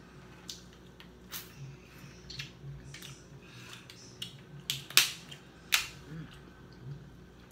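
Snow crab leg shells cracking and snapping as they are broken apart by hand: a string of sharp cracks, the two loudest about five seconds in, less than a second apart.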